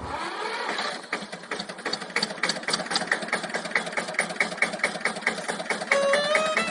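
Old tractor engine idling with evenly spaced beats, about five a second. Near the end, a violin begins playing over it.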